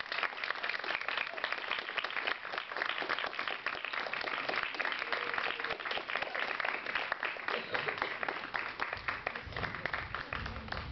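Audience applauding: many people clapping densely, without a break.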